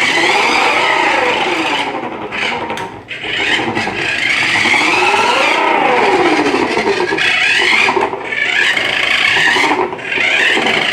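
Remote-control toy car's small electric motor whining as it is driven, its pitch sweeping up and down as it speeds up and slows, with a few brief drops.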